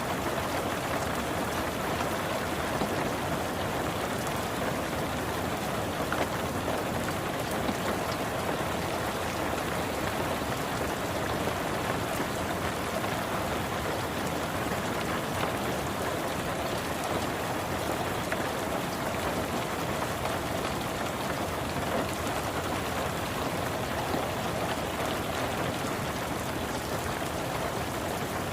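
Steady rain falling on a car, heard from inside the car: an even hiss with scattered drop taps.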